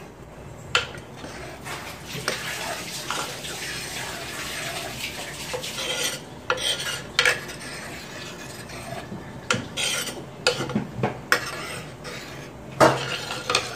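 Steel spoon stirring thick mutton gravy in a pressure cooker pot, scraping and sloshing, with several sharp clinks of the spoon against the metal pot.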